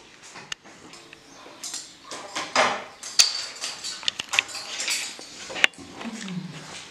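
A few sharp clinks of a china cup, saucer and plate being handled, among rustling and sipping sounds as someone drinks from the cup.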